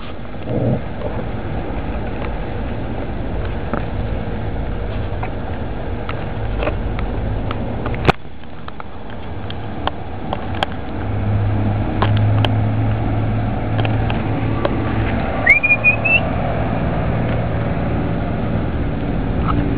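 Rustling and scattered knocks as the camera is pushed through dense leaves, over a steady low rumble that swells about eleven seconds in. A short rising squeak sounds about fifteen seconds in.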